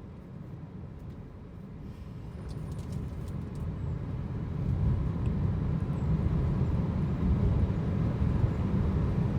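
Low, steady rumble of road and engine noise inside a moving car, growing louder from about four seconds in.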